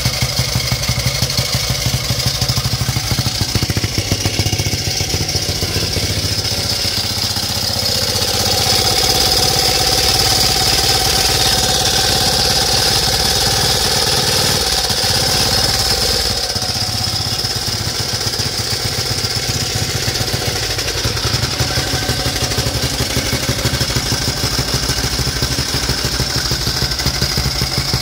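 1928 Chater-Lea 350cc single-cylinder face-cam engine running at a steady idle, its exhaust beating in an even, fast rhythm. It grows a little louder for a stretch in the middle.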